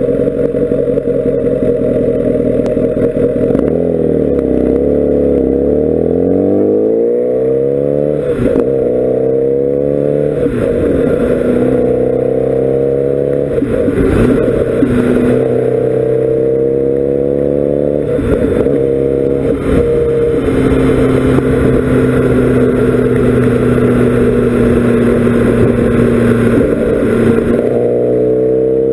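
Kawasaki Ninja ZX-10R SE's inline-four engine running under load. Its pitch dips and climbs several times, with short breaks between the climbs, then holds steady before dipping and rising again near the end.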